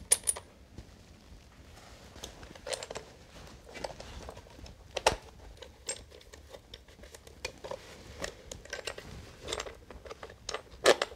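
Handling noise of a speed skate: light, irregular clicks and knocks of its metal blade mount being turned and fingered, a handful of them louder than the rest.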